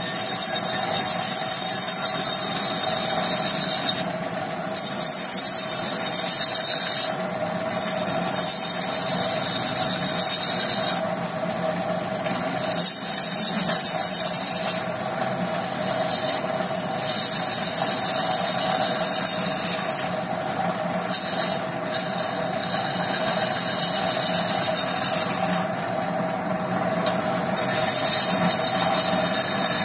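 Wood lathe running with a steady motor hum while a hand-held turning tool cuts the spinning wooden blank: a loud hissing scrape that comes in passes of a few seconds each, broken by short gaps where only the hum remains.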